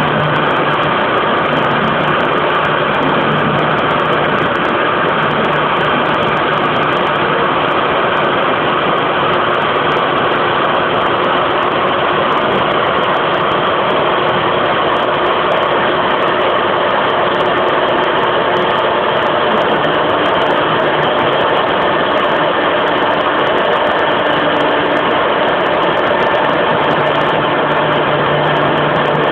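CNC router spindle running with a V-bit cutting a veneered plywood sheet: a loud, steady machine noise with a low hum that drops out and comes back.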